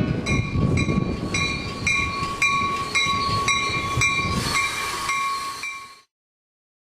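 Passing train rumbling, with a bell striking about twice a second and a steady high ringing tone above it; it fades out near the end.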